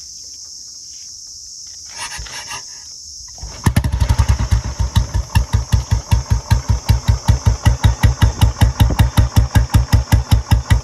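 Royal Enfield Bullet 350 single-cylinder engine, fitted with a short-bottle silencer, starts about three and a half seconds in. It settles into a slow, even idle thump of about five exhaust beats a second.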